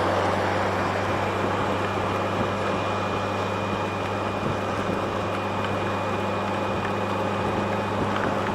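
2007 Yamaha FJR1300A motorcycle riding at a steady speed in heavy rain: a constant low inline-four engine hum under a steady hiss of wind and rain spray.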